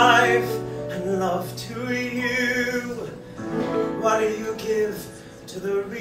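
A man singing a show tune with live piano accompaniment, in held phrases with a short break about three seconds in.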